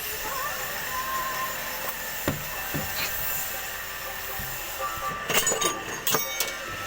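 Hammer blows on a steel chisel being driven into a large log to split it: a few separate knocks, then a quick cluster of strikes near the end, the last ones ringing like metal.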